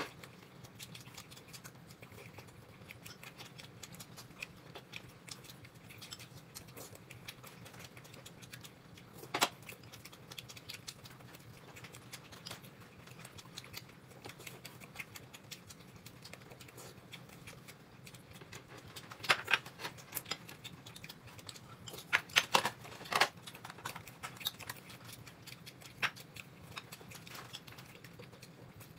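Close-up eating sounds: chewing and handling food, with a patter of small clicks and crackles throughout and a few louder crisp snaps about a third of the way in and in two clusters past the middle.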